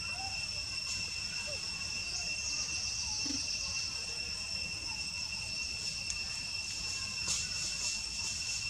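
Insect chorus: a steady, continuous high-pitched drone holding two even tones, over a low background rumble.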